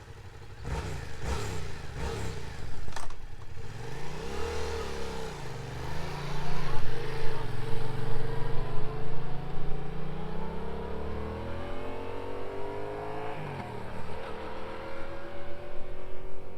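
Yamaha MT-07's 689 cc parallel-twin engine on its stock exhaust, revving through a flyby. The pitch climbs and dips several times as it shifts, and it is loudest in the middle. A few sharp knocks come in the first three seconds.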